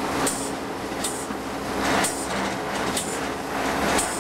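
Inside a moving locomotive cab: a steady engine drone, with sharp clicks about once a second from the wheels crossing rail joints.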